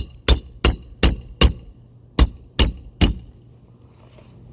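Hammer driving a roofing nail through a shingle into the roof decking: a quick run of ringing metal strikes, five in a row, a brief pause, then three more before it stops.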